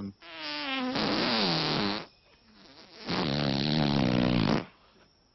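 Two long farts, the first about two seconds and the second about a second and a half, with a short gap between them. Each is loud and wavers in pitch: a comedy fart sound cutting off the gorilla's boast.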